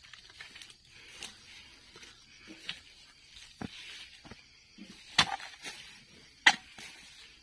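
Oil-palm harvesting chisel on a long pole chopping into the stalks at the base of an oil palm to cut off ripe fruit bunches: a few light chops, then two sharp loud cracks about five and six and a half seconds in.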